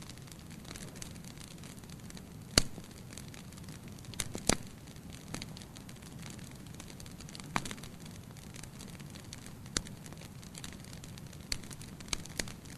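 Wood fire burning in a fireplace: a steady low hiss of flames with scattered sharp crackles and pops, the loudest about two and a half seconds in and a pair a little after four seconds.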